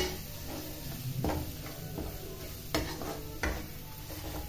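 A metal spatula stirring and scraping spice masala around a stainless steel kadhai in several strokes, over the sizzle of the masala frying in mustard oil.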